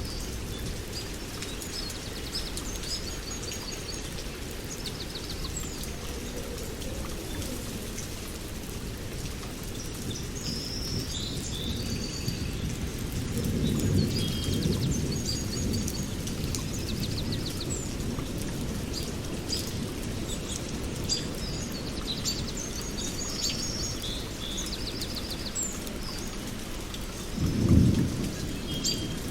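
Steady rain with low rolls of thunder, one about halfway through and a louder one near the end, while birds chirp and twitter throughout.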